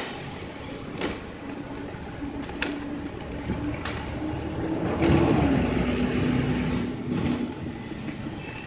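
City street traffic with a steady engine hum; a vehicle passes louder about five seconds in, its pitch dropping as it goes by. A few sharp knocks sound along the way.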